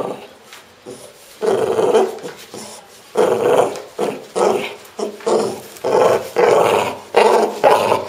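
French bulldog growling in a string of short, rough bursts, about two a second after a quieter first second and a half, with a rubber toy in its mouth.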